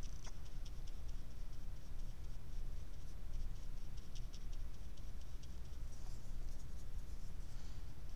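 Small watercolour brush dabbing and stroking on paper, making runs of quick, light scratches over a steady low hum.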